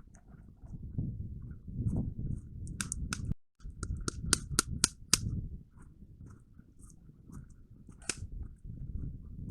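Airsoft guns firing: a quick string of sharp cracks about three to five seconds in, and one more crack near the end, over a low rumble of movement on the microphone.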